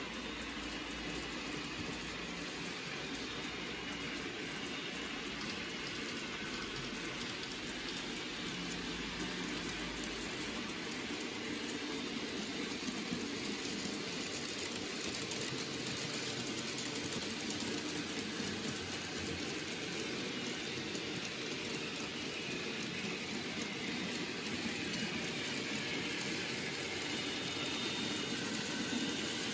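N gauge model trains running on layout track: a steady, even rushing rattle of small wheels on the rails.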